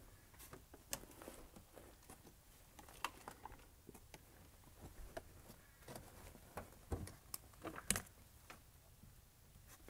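Faint handling noises of a wall panel being held against a van's side wall and marked with a marker: scattered light clicks and taps, the two loudest about seven and eight seconds in.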